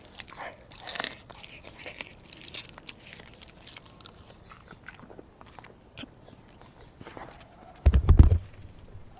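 Dog chewing and biting a piece of raw meat close by, a run of quick wet bites and chews in the first few seconds, then only scattered ones. About eight seconds in, a single loud, deep thump.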